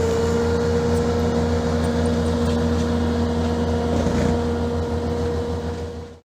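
Engine of a self-propelled weed mower running at steady speed, with a constant whine over a low hum. It cuts off suddenly near the end.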